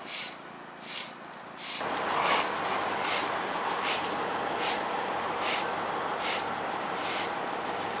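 A broom sweeping pavement, a short swish about every three-quarters of a second. A steady background noise comes in about two seconds in.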